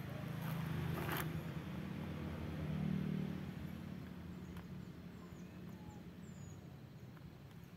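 Engine of a passing motor vehicle, a low hum that grows to its loudest about three seconds in and then slowly fades away, with a couple of light handling clicks early.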